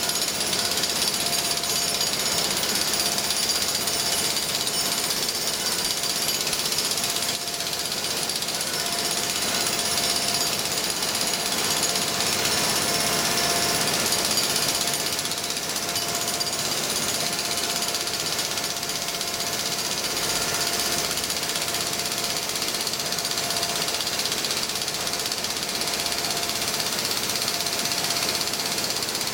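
Jackhammer hammering on concrete without a break: a dense, steady rattle with a thin, steady tone running through it.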